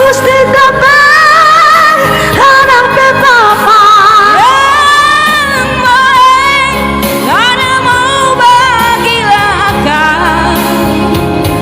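A woman singing a slow pop song live over backing music, holding long notes with vibrato and sliding up into several of them.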